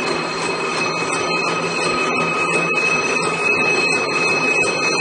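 Double-strand barbed wire machine (model CS-A) running at speed: a steady high metallic whine over a fast, even clatter from its spinning twisting drum and barb-wrapping mechanism.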